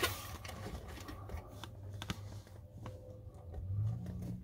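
Small shifter parts being handled by hand: a sharp click at the start, then a few faint clicks and light rustling, over a low steady hum.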